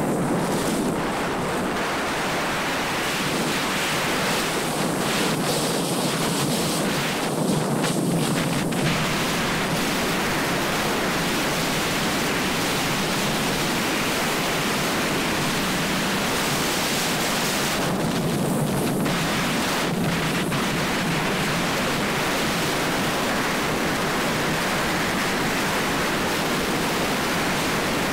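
Steady rushing wind noise on a body-worn action camera's microphone during a downhill run on snow, mixed with the hiss of sliding over packed snow.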